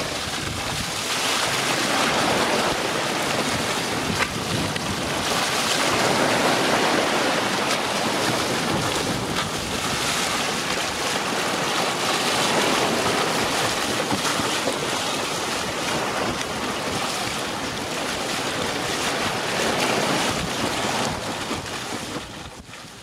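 Sea water rushing and splashing along the hull of a sailing yacht moving fast under sail, with wind buffeting the microphone. The sound swells and eases with the waves and fades out near the end.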